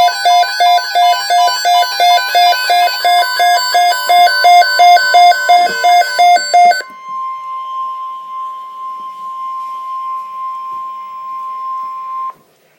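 Emergency alert tones: a loud electronic beeping that alternates between pitches at about three or four beeps a second for about seven seconds, then a single steady high tone of about 1 kHz held for about five seconds that cuts off suddenly near the end. The steady tone is the kind of attention signal, like the 1050 Hz weather-radio alarm, that comes before a National Weather Service alert message.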